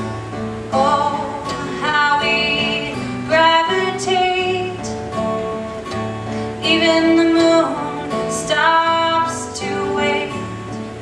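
A song played on strummed acoustic guitar, with a voice singing the melody over it from about a second in.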